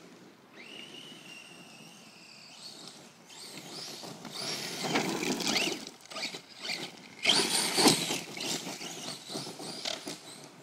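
Redcat Earthquake 8E electric RC monster truck driving on dirt: a high steady motor whine, then two louder bursts of acceleration with rising motor whine and tires churning dirt, the loudest about eight seconds in.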